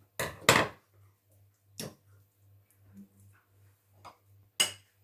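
Kitchen scissors snipping twice through thin brik pastry, close together about a quarter-second in. A few lighter clicks and knocks follow as the scissors and pastry are handled, with one sharper knock near the end.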